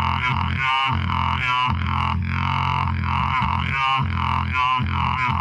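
Beatboxing: a steady droning vocal bass runs under a repeating rhythmic pattern of mouth sounds.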